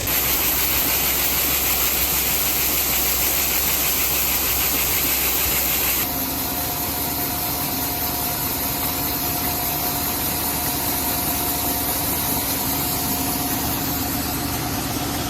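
Diesel engine of heavy harvest machinery running steadily. About six seconds in the sound changes abruptly to a steadier run with a thin whine.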